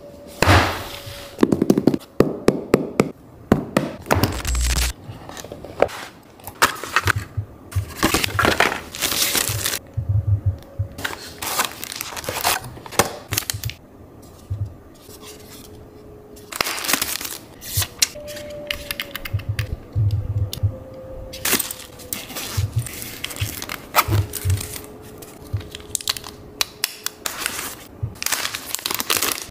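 Unboxing handling noise: cardboard and plastic packaging rustling and tearing, with sharp irregular taps and clicks as a phone charger, case and other accessories are picked up and set down on a hard stone tabletop.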